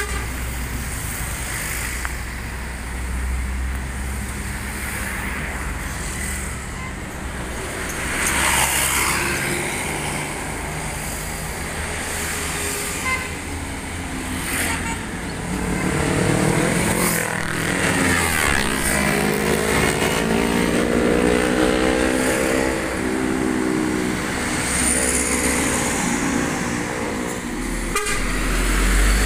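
MAN tractor-trailer's diesel engine pulling away and driving past close by, with other road traffic going by. Through the second half the engine note climbs, then holds steady and grows louder as the truck nears.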